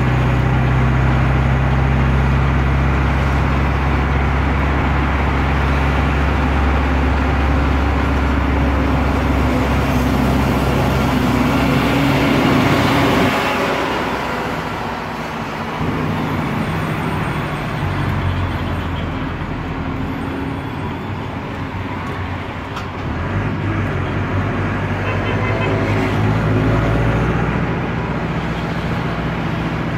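Air-cooled Deutz F4L912 four-cylinder diesel of an Otokar M-2000 minibus, heard from inside the cab while driving. The engine runs under load, its note drops away about halfway through, then builds again later on.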